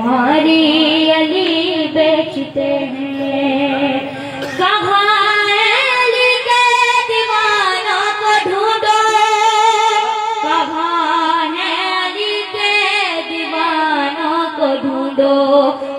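A boy singing a devotional manqabat in praise of Ali into a microphone, without words the ear can easily follow: long drawn-out notes with a wavering, ornamented pitch.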